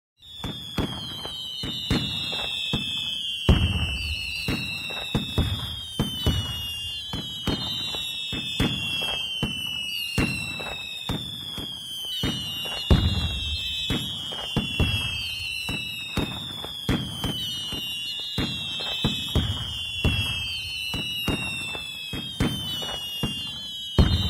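Fireworks with whistling rockets: one high whistle after another, each falling slightly in pitch over a second or two and overlapping the next, with sharp cracks and deeper bangs throughout.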